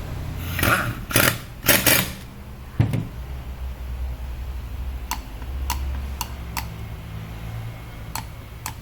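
Hand work on metal compressor parts on a workbench: a few scraping rattles, a sharp knock about three seconds in, then a series of light clicks, over a low steady hum.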